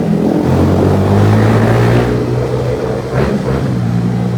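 Motorcycle with a loud aftermarket exhaust running on the move, a steady deep engine note with a brief drop in throttle about three seconds in.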